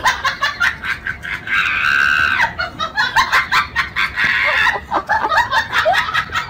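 Dog's squeaky toy being chewed: rapid high squeaks, with one long squeal about two seconds in.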